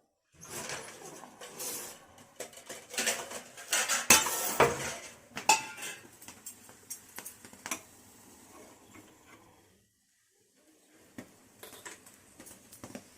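Metal kitchen utensils and cookware clattering and clinking at a gas stove: a dense run of sharp knocks and scrapes for several seconds, a short pause, then a few more clinks near the end.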